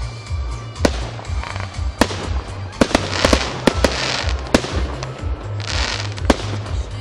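Aerial fireworks going off: a string of about nine sharp bangs, with crackling bursts about three to four seconds in and again near six seconds.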